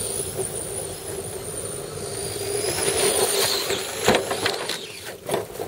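Axial AX10 radio-controlled rock crawler's electric motor and gearbox whining steadily as it creeps up and over a log, with a few knocks and clatters near the end as the tyres and chassis hit the bark.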